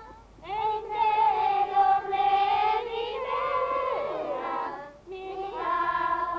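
Background music of high voices singing a song together in harmony, with long held notes and a short break between phrases about five seconds in.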